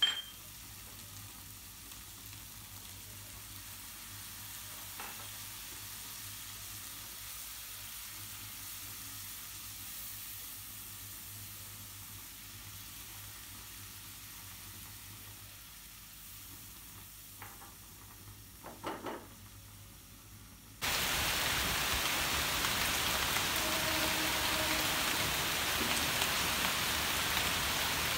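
Sliced onions and ground spices sautéing in a non-stick frying pan on a gas burner, a faint steady sizzle with a few scrapes of a silicone spatula about two-thirds of the way through. Then, with an abrupt cut, steady heavy rain falling on tree leaves, much louder than the frying.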